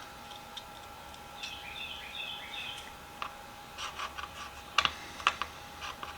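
Light clicks and taps of small metal ratchet parts being handled as the little cap of a 1/4-inch ratchet is worked back on, with a brief scrape about one and a half seconds in and a few sharper clicks about five seconds in.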